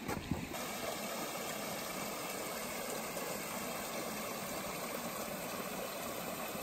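Shallow woodland stream flowing over a low stone sill, giving a steady rush of water. There are a couple of brief knocks at the very start.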